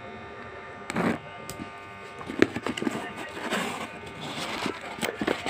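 Scissors snipping through packing tape on a cardboard parcel. Then the cardboard flaps are pulled open, with crackles and rustling of cardboard and the paper slip inside.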